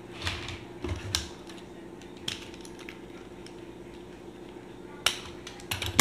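Small tools and wire being handled on a tabletop: scattered light clicks and clinks, with a quick cluster of them near the end, over a faint steady hum.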